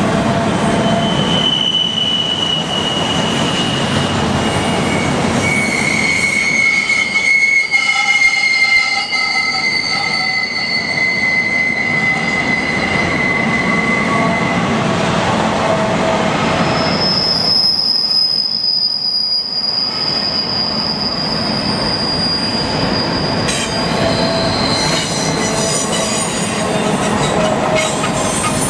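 Double-stack intermodal freight cars rolling past on a curve, with steel wheels squealing against the rail over the rumble of the train. There are several long, high, steady squeals that come and go at different pitches.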